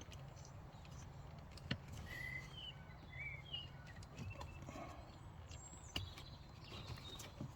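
Faint clicks and rustling of a wiring-harness plug being handled and pushed into a car's OBD port, over a low steady hum.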